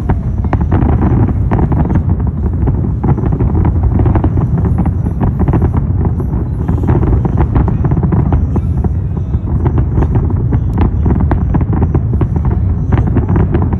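Wind rumbling on the microphone, with many small clicks and knocks over it.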